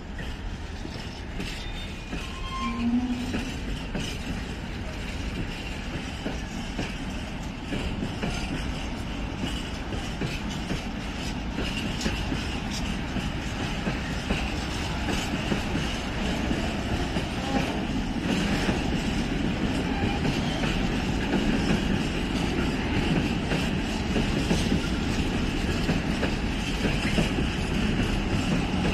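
Freight train of open coal wagons (gondolas) rolling past: a continuous rumble of wheels on rail with repeated clatter over the rail joints, slowly growing louder.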